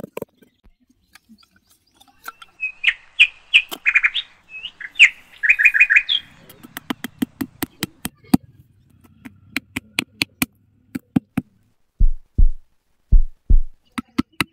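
Birds chirping in short bursts for a few seconds, then a hammer tapping thin wooden sticks into sand as posts in a quick run of even blows, with four heavier, deeper blows near the end.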